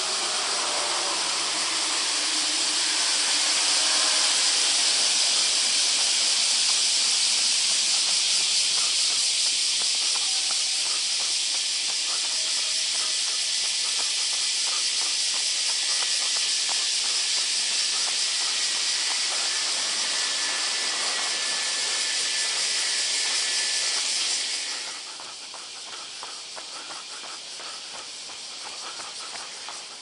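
Loud, steady chorus of cicadas, a dense high-pitched hiss that drops to a quieter level about 25 seconds in.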